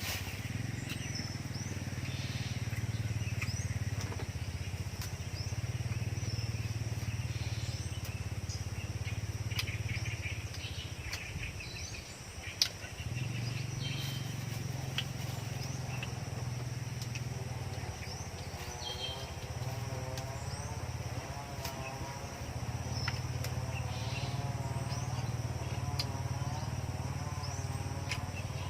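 Scattered bird chirps over a steady low rumble, with a single sharp click about halfway through.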